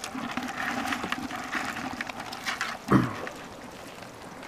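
Live crayfish clicking and scrabbling against each other and a plastic bucket as a gloved hand rummages among them, with one louder knock about three seconds in.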